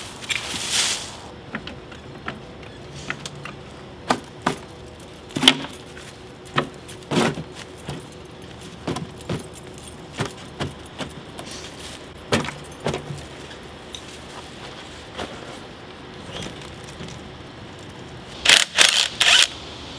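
A shovel digging and scraping into dirt and leaf litter around a sunken truck wheel: a string of separate strikes and scrapes, with small metallic clinks and the jingle of keys hanging at the digger's belt. Near the end comes a quick cluster of louder rasping strokes.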